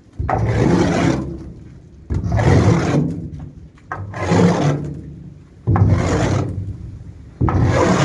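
Manure being scraped along a cattle trailer floor with a long-handled hand tool: five scraping strokes about two seconds apart, each starting sharply and fading away.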